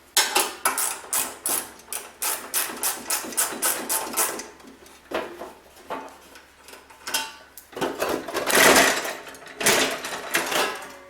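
Ratchet wrench clicking in quick strokes, about four to five a second, as the snowblower's panel bolts are backed out; then scattered knocks and a louder scrape about eight seconds in as the panel comes away.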